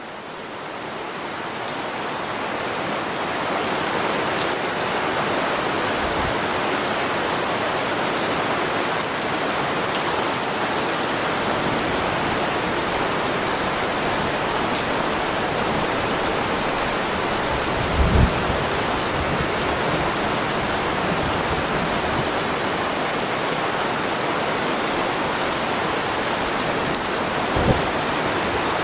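Steady heavy rain falling, fading in over the first few seconds, with two short low rumbles of thunder, one about two-thirds of the way through and one near the end.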